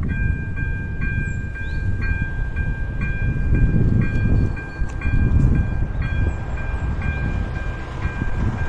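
Electronic bell (Elektronický 02) of an AŽD 97 level-crossing warning signal starting to ring, a steady electronic two-tone chime that pulses about twice a second: the crossing has activated for an approaching train. A low uneven rumble of wind on the microphone lies under it.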